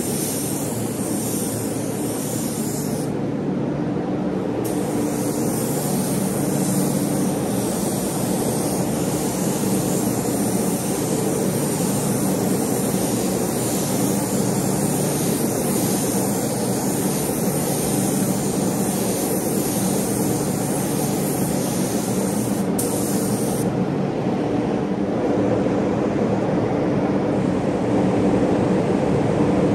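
Paint spray gun hissing steadily as a coat of paint is sprayed, over the steady hum of its air supply. The hiss breaks off briefly about three seconds in and stops about six seconds before the end, leaving the hum running.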